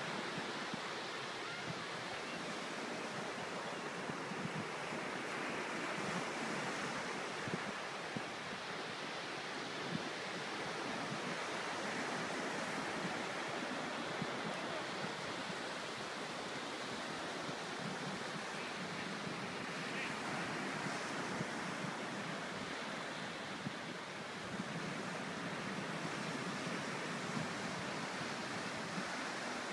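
Ocean surf breaking and washing up the beach, a continuous rushing hiss that swells and eases gently.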